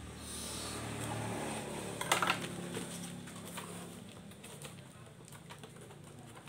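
Scissors cutting cardboard and a cardboard box being handled: a rasping cut, then a brief cluster of sharp cardboard knocks and rustles about two seconds in, followed by lighter scattered taps.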